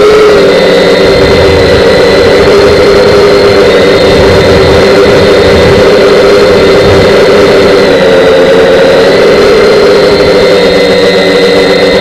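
Radio-controlled model airplane engine running steadily at low throttle close to the microphone, a loud buzz that wavers slightly in pitch.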